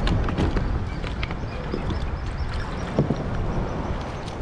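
Wind buffeting the microphone over water lapping against a plastic kayak hull, with a few short clicks scattered through.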